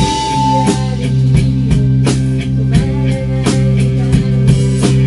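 Live pop-rock band playing an instrumental passage: a drum kit keeps a steady beat under held guitar, bass and keyboard notes, with no singing.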